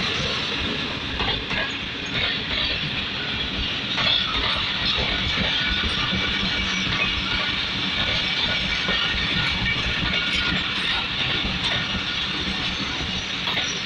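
Passenger coaches of an arriving train rolling past on the rails: a steady rumble and hiss of steel wheels, with scattered clicks as the wheels cross rail joints.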